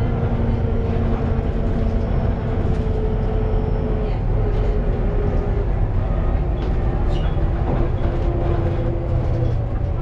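Volvo B7TL double-decker bus on the move, heard inside the upper deck: a steady low rumble of engine and road, with a thin whine that drifts in pitch, fades about halfway, and is followed later by another whine, plus a few faint rattles.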